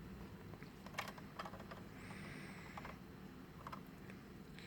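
Faint, irregular light clicks and taps from handling a plastic Kit Cat Klock, with a brief soft hiss about two seconds in.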